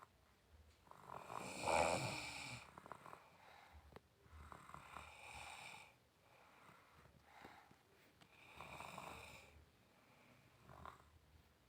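A person snoring in sleep: a loud snore about two seconds in, then softer snoring breaths every few seconds.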